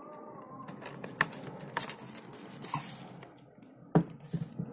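Handling noise as the phone box and its accessories are tidied up on a wooden desk: rustling with scattered clicks and knocks. The loudest is a sharp knock about four seconds in, followed by a few smaller taps.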